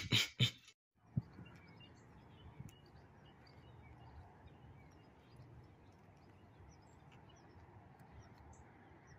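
Faint outdoor ambience with small birds chirping in the distance over a steady background hiss. A few sharp clicks come right at the start and cut off abruptly.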